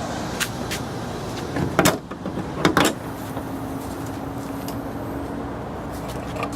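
Car running with a steady hum. About two seconds in come two heavy thumps under a second apart, with a few light clicks before them, and then a steady low tone sets in.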